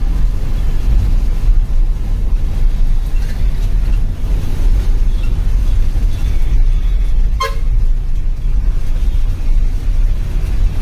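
Bus engine running steadily with a deep, low rumble, heard from inside the driver's cab as the bus moves through traffic. A short horn toot sounds once, about seven seconds in.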